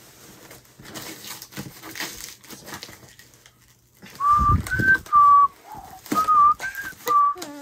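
Packing tape peeled off a cardboard box with quiet crinkling and scratching, then, about four seconds in, a short whistled tune of about six notes stepping up and down in pitch, with a low thump as it begins.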